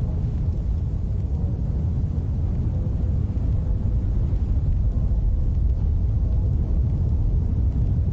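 Steady low rumble: a pitchless noise sitting mostly in the deep bass, holding an even level throughout.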